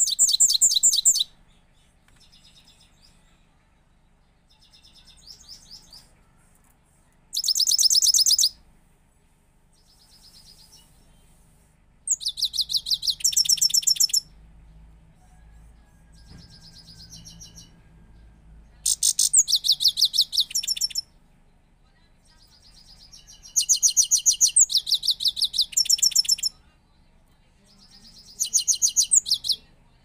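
Caged goldfinch singing: about six loud phrases of rapid, high twittering trills, each one to two seconds long, with softer scattered notes between them.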